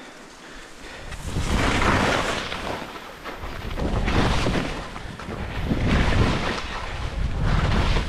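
Skis hissing and scraping through chopped-up snow as a skier sets off downhill, with wind rushing over the camera microphone. The noise starts about a second in and swells and eases in waves.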